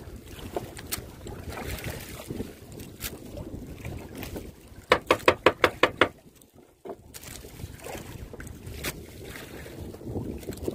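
Wind on the microphone and sea water around a small outrigger fishing boat, with a quick run of about six loud knocks about five seconds in.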